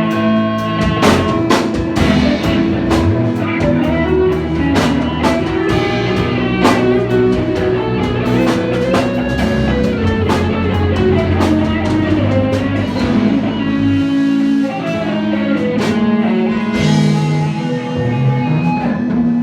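Live band playing an instrumental passage with guitar and drum kit, the drums hitting steadily under sustained chords and a melodic lead line.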